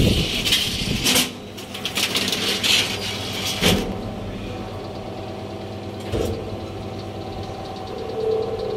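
The manual accordion gate of a Seeco elevator clattering shut, with metal rattles and clanks over the first few seconds. After that comes a steady hum from the two-speed traction drive, a thump about six seconds in, and the car starting up near the end.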